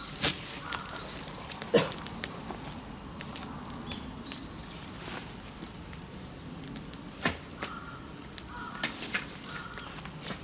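Wood campfire crackling with irregular sharp pops, over a steady high-pitched hiss.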